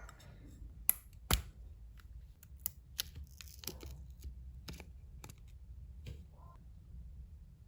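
Small objects being handled: scattered light clicks and taps with brief rustling, and two sharper clicks about a second in.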